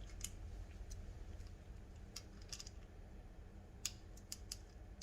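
A few faint, scattered light clicks and ticks as small bike parts are handled and twisted into place by hand during assembly.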